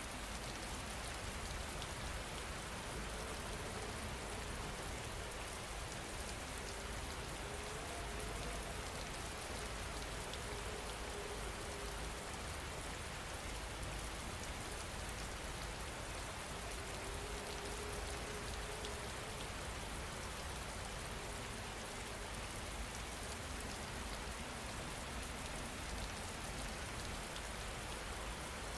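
Steady rain falling, an even hiss with a low rumble underneath that holds at the same level throughout.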